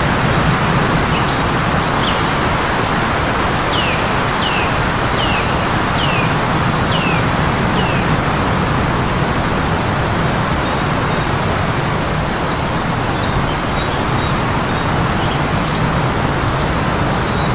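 Heavy blizzard wind blowing in a steady, unbroken rush, with a small bird chirping over it: a run of about seven quick down-slurred chirps a few seconds in, and a few more short chirps near the end.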